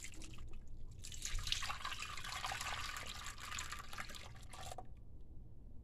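Hot strawberry gelatin and milk mixture poured from a jug into a glass baking dish: a steady liquid pour that stops about a second before the end.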